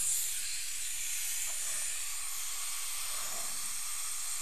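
Dental suction hissing steadily. It switches on abruptly at the start.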